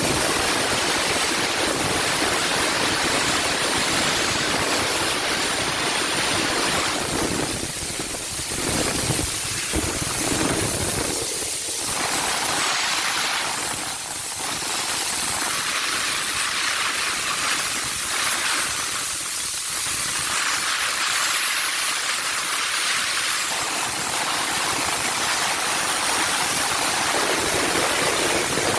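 Handheld steam car-wash gun hissing steadily as it blasts steam onto a car's bodywork, easing off briefly a few times.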